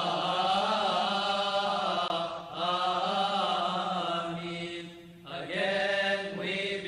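Coptic church congregation chanting a drawn-out liturgical response, with long held sung notes over a steady low tone. The chant comes in three phrases, with short breaks about two and a half and five seconds in.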